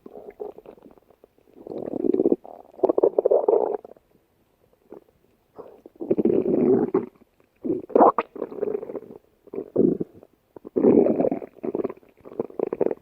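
Stomach rumbling and gurgling in irregular bursts of one to two seconds, separated by short silent gaps.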